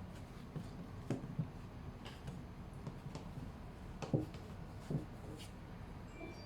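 A few light, scattered clicks and knocks over a low steady hum.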